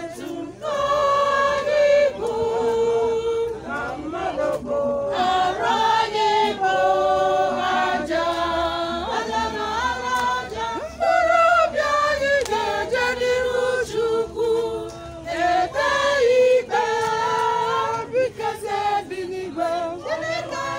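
Church choir singing, several voices together holding long sung notes in phrases.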